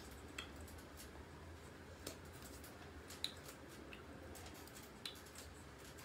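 Faint steady low hum with a few short, sharp clicks scattered through it; no speech is heard.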